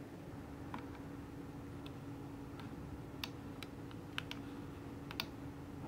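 Computer mouse clicking: about eight short, sharp clicks at irregular intervals, over a steady low hum.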